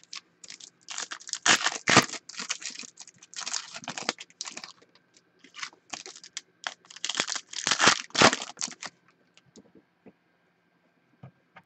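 Trading-card pack wrappers crinkling and tearing as packs are opened by hand, in a run of crackly bursts that stops about nine seconds in. After that there are only a few faint taps as the cards are squared into a stack.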